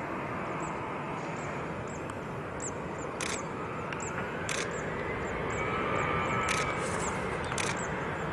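Boeing 767 airliner's jet engines on low approach, a steady rush whose note rises and grows slightly louder about halfway through as thrust comes up for the go-around. Sharp clicks come roughly once a second over the engine noise.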